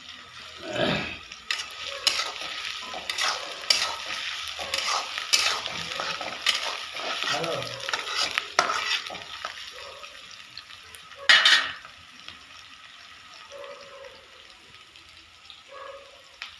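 Sliced onions and green chillies frying in oil in a kadhai, sizzling while a spatula scrapes and stirs them against the pan. The stirring strokes come thick over the first ten seconds, there is one loud sharp clatter of metal on the pan about eleven seconds in, and then only a quieter sizzle.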